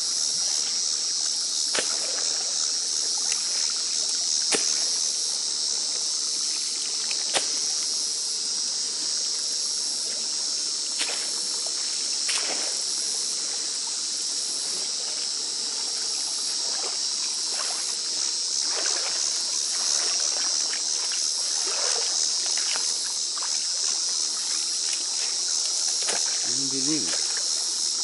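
A steady, high insect chorus of chirping that never lets up, with scattered splashes and drips as a rake is lifted out of and pushed back through algae-choked water.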